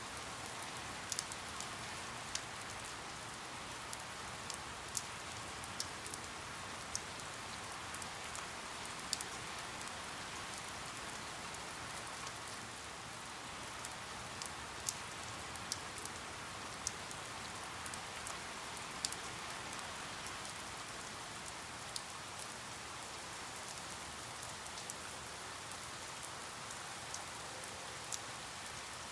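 Steady rain falling, an even hiss with scattered individual drops ticking sharply on a hard surface at irregular moments.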